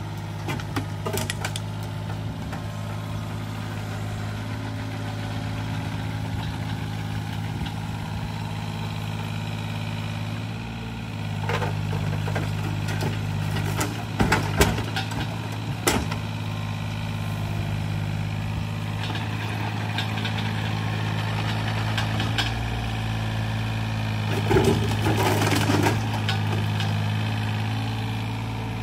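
Yanmar mini excavator's diesel engine running steadily under hydraulic load, its note rising about ten seconds in. Demolition debris clatters and bangs as it is dumped into a dump truck bed, in bursts a little after the start, through the middle, and again near the end.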